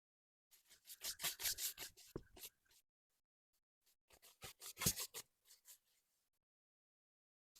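Two short spells of quick rubbing or scraping strokes on wood, the first about half a second in and the second about four seconds in.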